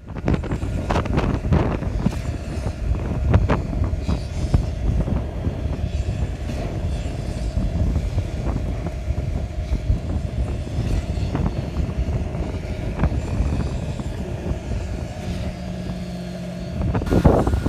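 Concrete pump running with a steady hum during a concrete pour, with occasional knocks. Wind buffets the microphone as a low rumble.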